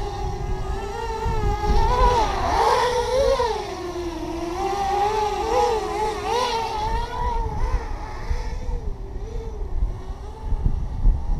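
OFM Hyper 330 racing quadcopter's motors and propellers whining in flight, the pitch wavering up and down with the throttle, fainter in the last few seconds, over a low rumble.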